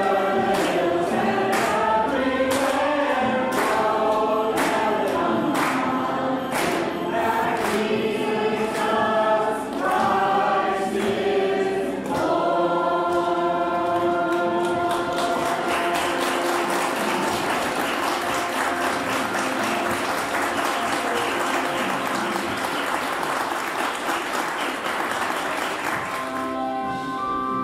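Choir singing with accompaniment and a steady beat; the song ends about halfway through and applause follows for roughly ten seconds, then instrumental music starts again near the end.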